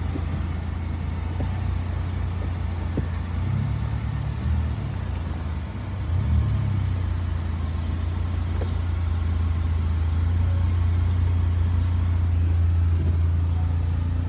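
A motor vehicle's engine running with a steady low drone. It shifts briefly between about four and six seconds in and runs a little louder after that.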